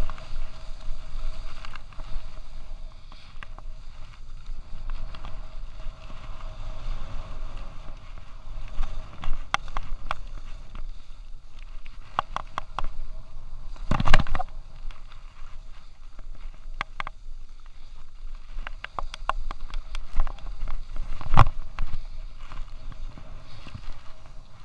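Skis sliding and scraping over soft snow on a downhill run, under a steady rush of noise with frequent sharp clicks and knocks from the chest-mounted camera harness and gear. Two louder thumps come about halfway through and near the end.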